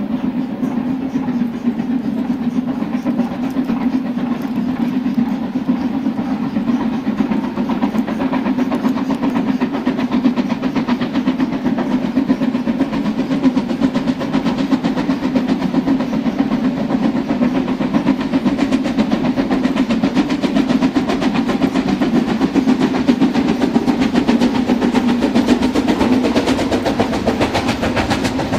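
Model railway train running along its track, heard from a camera riding on one of its wagons: a steady hum with fine ticking from the wheels over the rails.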